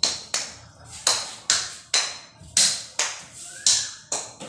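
A pink toy racket hitting a ball again and again in a short rally: sharp hits about two a second, slightly uneven, each with a short echo off the walls of a small room.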